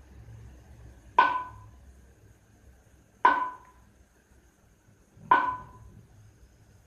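Three sharp knocks about two seconds apart, each with a short ringing tone that dies away quickly.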